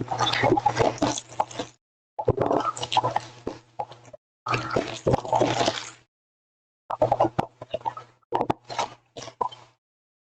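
Cardboard hobby box being opened and foil card packs handled, giving crinkling, rustling and sharp taps in four bursts separated by dead silence. A low hum runs under each burst.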